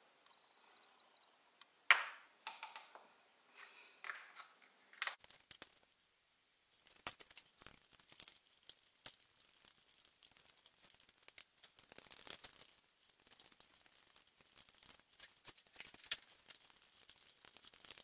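Wooden stir sticks scraping and ticking against clear plastic cups as resin is mixed with colour pigment, in a dense, uneven run of small scrapes. A few sharp taps and clicks come before it, in the first few seconds.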